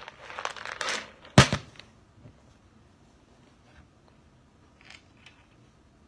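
Dry pinto beans rattling and pouring out of a bowl for about a second, followed by a single sharp knock, the loudest sound, as something hard strikes the table. A few faint clicks of beans being handled follow.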